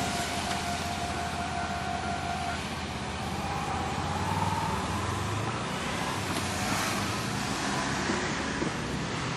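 Road traffic at a railway level crossing just after a train has passed: car engines running and moving off, with a steady tone that stops about two and a half seconds in and a short rising whine near the middle.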